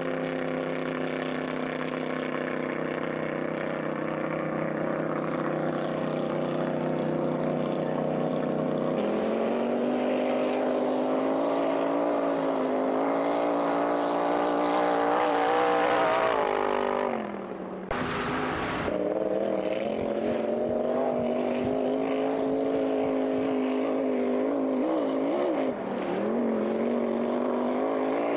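Hydroplane racing boat's engine running at speed, a steady pitched drone. The pitch steps up about a third of the way in and keeps climbing, drops briefly a little past the middle, then holds with some wavering.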